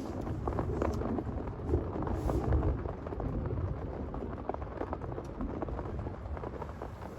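Heavy rain falling, a dense patter of drops striking a surface, over a low rumble that is strongest in the first three seconds.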